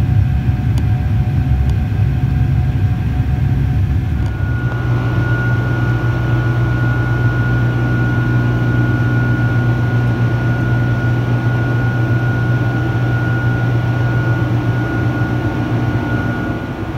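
Cabin noise of a Rolls-Royce-powered Boeing 747-400 climbing after takeoff: loud, steady engine and airflow drone from beside the wing. About four seconds in the sound shifts and a steady high whine joins it.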